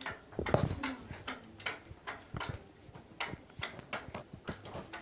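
Repeated irregular knocking, a couple of knocks a second, the heaviest a dull thud about half a second in.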